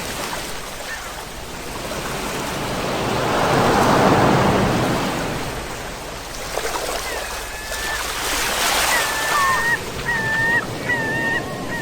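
Sea waves breaking and washing on the shore, swelling to a peak about four seconds in. From about seven seconds a bird calls in a run of short, level-pitched notes, repeated roughly twice a second.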